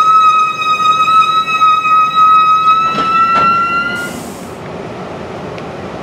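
Bilevel commuter coaches rolling past with a steady high-pitched metallic squeal from the running gear that rises slightly in pitch. Two sharp clacks of wheels over rail joints come about three seconds in. The squeal cuts off about four seconds in, leaving a quieter, even rumble.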